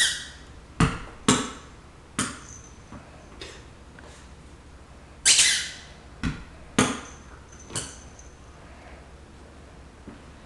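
Tennis ball bouncing on a hard floor: about nine sharp knocks at uneven intervals, the loudest at the start and about five seconds in.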